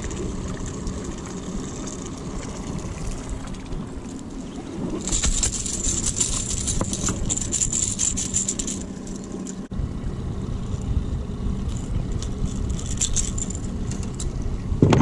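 Small boat outboard motor running steadily at trolling speed. About five seconds in, a few seconds of metallic rattling and jangling rise over the motor.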